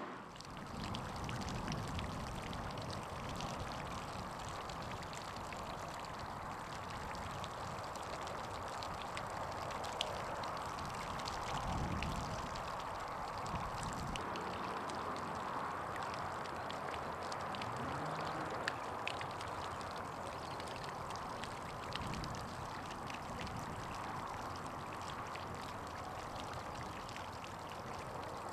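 Small pond fountain splashing steadily: a continuous rush of falling water flecked with fine droplet patter.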